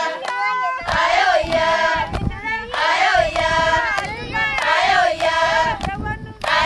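Group of Maasai villagers singing together: a high phrase sung in unison, starting again about every two seconds, over a lower held voice.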